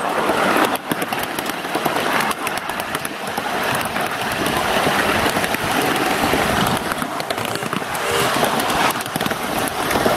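Ride-on miniature railway train rolling along its track: a steady rumble of wheels on rail with frequent small clicks and rattles.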